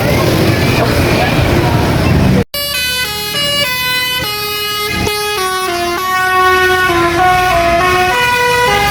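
Bus telolet basuri horn playing a melody of short stepping notes. About two and a half seconds in it starts abruptly after a cut, following a stretch of engine and street noise.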